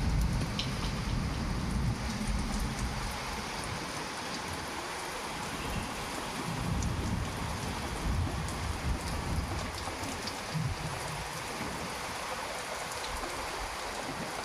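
Heavy rain falling steadily. A low rumble of thunder at the start fades away over the first few seconds, and fainter rumbles swell up again about halfway through.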